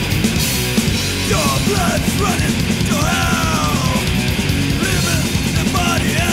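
Studio recording of 1990s Brazilian thrash metal: distorted guitars and fast, dense drumming, with a high line sliding up and down in pitch over the top.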